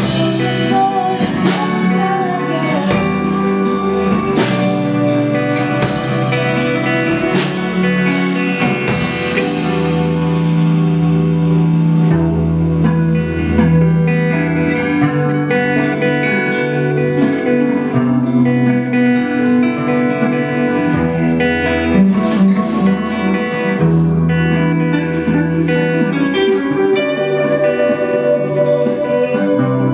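Live band music, with guitars over bass and drums; regular cymbal strikes ring through the first ten seconds or so.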